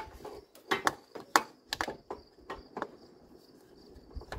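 A quick string of sharp clicks and taps from a small plastic measuring cup being handled against the carburetor of a garden tractor's engine, seven or so in the first three seconds. A faint steady high chirring runs underneath.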